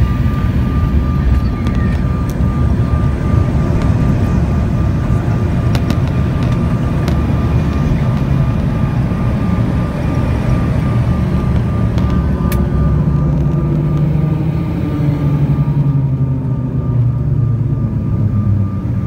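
Cabin noise inside a jet airliner rolling along the runway after touchdown: a steady low rumble of wheels and engines with a thin steady whine over it, and a few light clicks. A lower engine hum swells about two-thirds of the way through and sinks slightly near the end.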